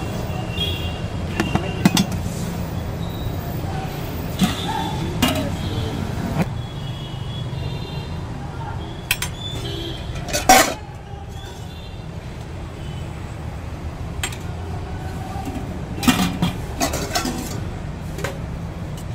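Stainless-steel serving spoons, ladles and a steel lid clinking and knocking against steel pots while food is served, with one loud clank about halfway through. A steady low rumble of traffic runs underneath.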